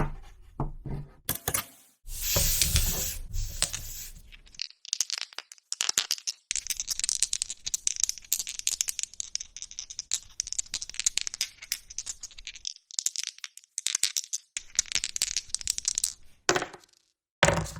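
A string of board game sound effects: small hard game pieces rattling and clattering, with a long run of rapid dense clicking in the middle and a few short separate clatters near the end.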